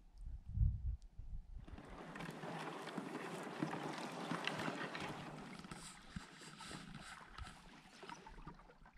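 Water swishing and trickling along a moving canoe, beginning suddenly about two seconds in, after a few low rumbles of wind on the microphone.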